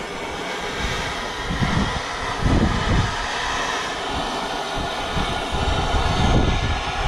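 A gas torch burning with a steady loud hiss as it heats an old rubber subframe bushing to free it.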